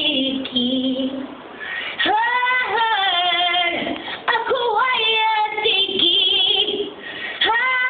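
A 12-year-old girl singing unaccompanied: sung phrases with held notes that waver, and short breaths between them.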